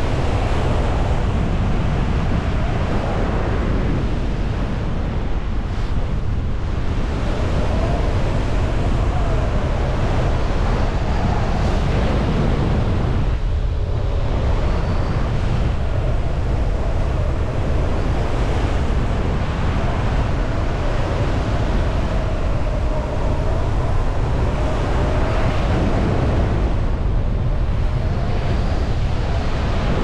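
Steady rush of flight airflow against a GoPro 10 muffled by a Windslayer foam cover during parakite gliding, mostly a deep rumble. A faint wavering whistle runs through the middle of it.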